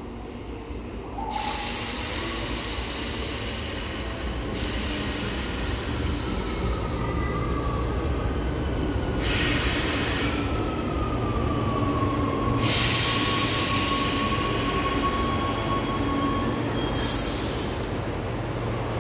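Rome Metro train pulling into the station and braking to a stop, its rumble growing louder as it arrives. Bursts of hissing come and go throughout. From about halfway, a high wheel squeal glides down in pitch and holds steady for several seconds before fading as the train stops.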